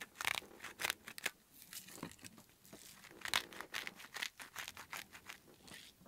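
Irregular crackling and crinkling clicks from hands seasoning a bowl of pasta, handling dry food and its packaging.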